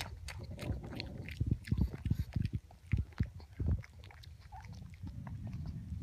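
A pug biting and chewing a dog treat: irregular crunches and teeth clicks for about the first four seconds, then fewer clicks over a steadier low sound as its nose goes down to the fabric.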